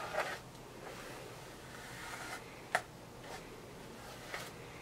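Kids' hairbrush being drawn through long, tangled hair: soft brushing rustle stroke after stroke, with a few faint ticks and one sharper click near the middle.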